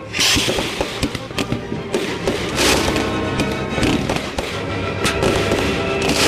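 Consumer aerial fireworks going off in quick succession: sharp bangs and crackling, with a loud burst just after the start, another in the middle and one near the end. Background music plays underneath.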